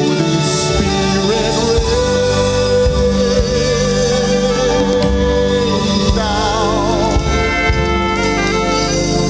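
Gospel choir singing a worship song with instruments, including a long held note with vibrato.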